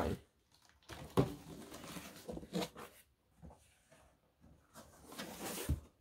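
Cardboard box flaps being pulled open and folded back: irregular bursts of cardboard scraping and rustling, with a short knock near the end.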